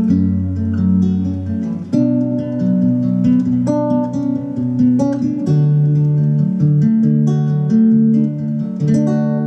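Godin Grand Concert Duet nylon-string electro-classical guitar played fingerstyle through a Fender Acoustasonic 150 acoustic amplifier: a plucked melody over a moving bass line, the held bass note changing about two seconds in.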